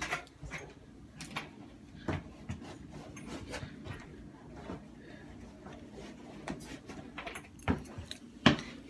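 Scattered clicks and knocks from someone moving about and handling things, with a few sharper knocks, two of them close together near the end.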